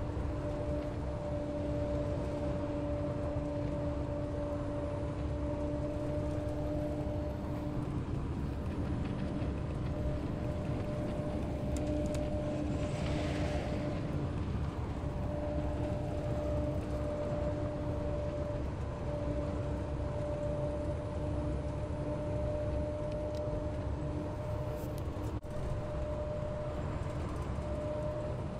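Inside a highway coach at cruising speed: steady low engine and road rumble with a constant hum. A short rush of hiss about halfway through.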